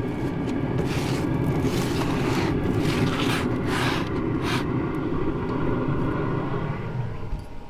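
Metal spatula scraping across grill grates and crinkling foil as a foil-wrapped fish is slid off the grill, several short scrapes over a steady low rumble that stops near the end.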